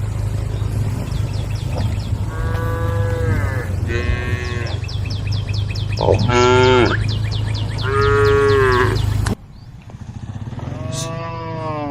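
Cattle mooing: about five drawn-out calls, one after another, the loudest about six seconds in. A steady low hum runs behind them and cuts off suddenly about nine seconds in.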